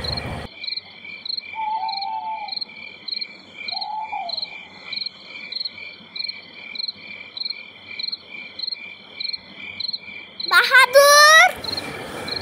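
Crickets chirping steadily, two or three chirps a second over a continuous high trill, with two brief lower calls in the first few seconds. Near the end a woman calls out loudly for about a second, her voice rising in pitch.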